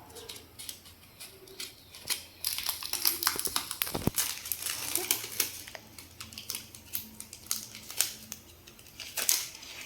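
Foam sheet being handled and folded into a cylinder: irregular crinkling and rustling with many small clicks, and one sharper knock about four seconds in.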